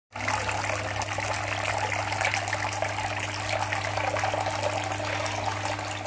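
Small tabletop water fountain running, with thin streams of water falling from a plastic-bottle top into a shallow basin in a steady trickling splash. A steady low hum sits underneath.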